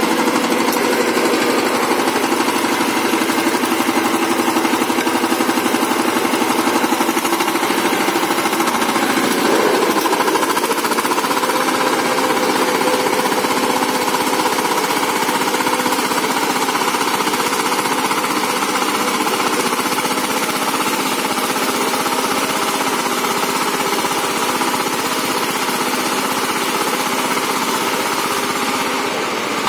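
A VST Shakti 130 DI power tiller's single-cylinder diesel engine running under load while its rotary blades till the soil: a steady, rapid knocking chug. It grows slightly fainter near the end as the machine moves away.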